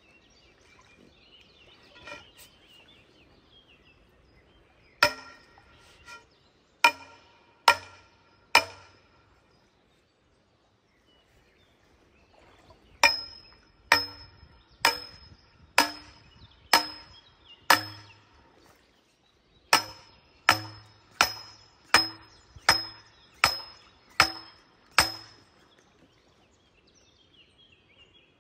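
A sledgehammer strikes a steel scaffold tube, driving it into a sandy streambed. Each blow is a sharp metallic clang that rings briefly. The blows come in three runs of about five, six and eight, roughly one a second, with short pauses between.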